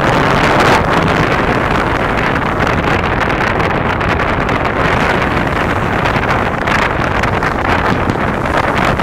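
Wind buffeting the microphone: a steady, loud rushing rumble.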